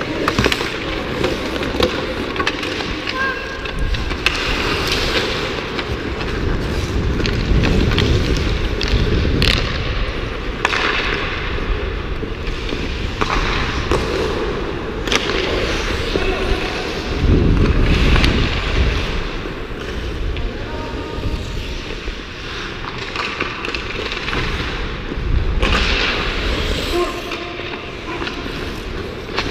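Hockey skate blades scraping and carving on ice, close to a player-worn action camera, with rushing noise on the microphone and scattered sharp clacks of sticks and puck.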